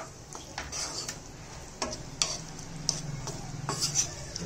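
A wooden spatula stirs mutton liver gravy in a nonstick kadai, making irregular scrapes and knocks against the pan as the half cup of water just poured in is mixed through.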